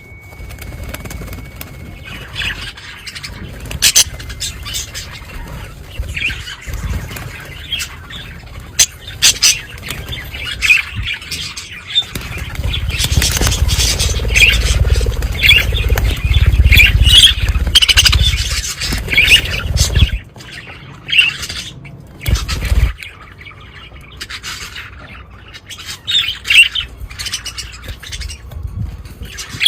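A colony of budgerigars chattering, with many short chirps and squawks overlapping. A low rumble joins in through the middle and stops about two-thirds of the way in.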